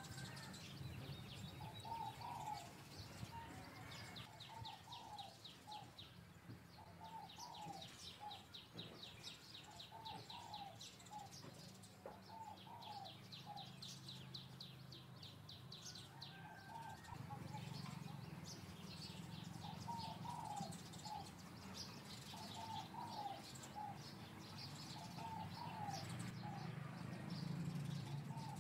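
Birds calling faintly: a short call of a few notes repeating about once a second, with a fast high trill that comes and goes, over a low steady hum.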